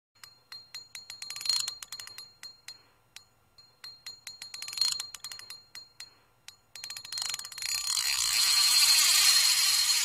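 Intro sound effects: two quick runs of ticking clicks with a high bell-like chime ringing through them, then a hissing whoosh that swells over the last three seconds, is the loudest part, and cuts off suddenly.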